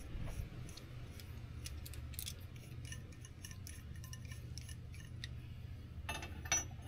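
Light metallic clicks and taps of steel U-bolts and their nuts being handled, with nuts being turned off the threads by hand, over a steady low hum. The clicking grows denser and louder about six seconds in.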